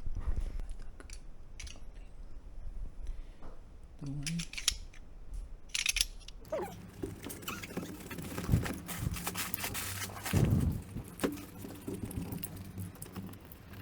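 Scattered clicks and handling noises of hand work, with a low steady hum setting in about halfway through.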